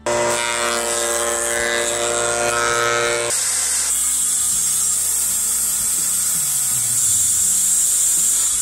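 From about three seconds in, a Makita circular saw runs and cuts through a softwood beam with a steady high whine. It is making a series of parallel kerfs to clear out a lap joint. Before that there is a steady pitched hum.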